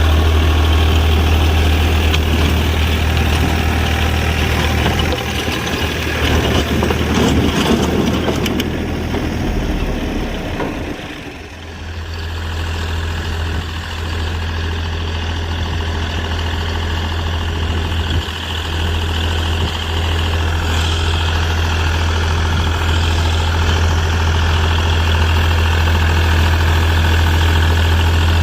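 Classic Ford tractor engine running steadily with a low hum, dipping briefly in loudness about eleven seconds in.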